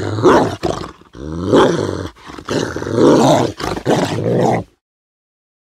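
Loud animal-like calls, five or so in a row with short breaks between them, cutting off suddenly near the end.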